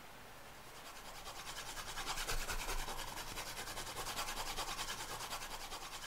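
Pencil shading on paper: a fast, even back-and-forth scratching that builds up, is loudest about two to three seconds in, then fades away.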